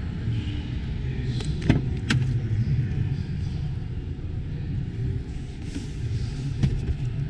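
Auto show exhibition hall ambience: a steady low rumble of indistinct crowd noise. Two sharp clicks come close together about two seconds in, and another comes near the end.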